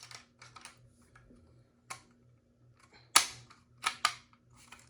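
Scattered sharp plastic clicks and knocks from handling a First Alert SA303 smoke alarm while a 9-volt battery is fitted. The loudest click comes a little past three seconds, and two more follow close together near four seconds.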